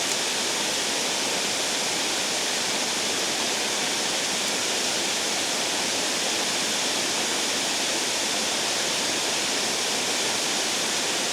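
Water pouring over a dam spillway: a steady, loud rush of falling water.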